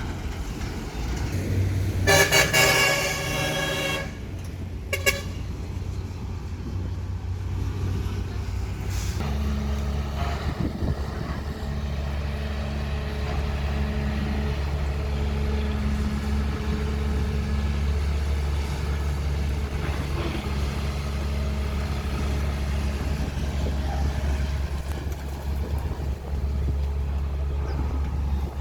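A horn sounds once for about two seconds near the start, the loudest thing heard. Under it a heavy diesel engine, presumably the excavator's, runs with a steady low hum that gets louder and heavier about nine seconds in and stays steady after that.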